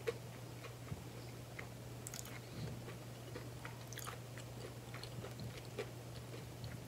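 Faint close-up chewing of a mouthful of KFC mashed potato bowl: soft wet mouth clicks and smacks scattered through, over a steady low hum.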